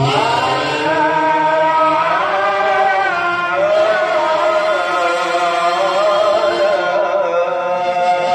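A male voice singing one long, melismatic phrase in the maqam Nahawand. The pitch rises at its start and then wavers in ornaments for about eight seconds, until a pause at the end.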